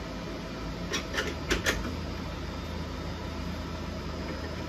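Four quick sharp clicks and knocks of hard 3D-printed plastic parts being set into place on a 3D printer's top frame, bunched between about one and two seconds in, over a steady low machine hum.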